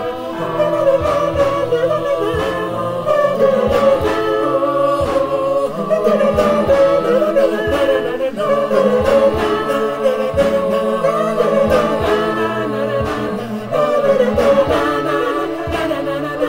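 Four-part a cappella choir singing wordless syllables: sopranos on a quick 'na na na' line over held 'ah' and 'don dan dan' parts in the lower voices. Body percussion (hand claps and slaps) keeps a steady beat underneath.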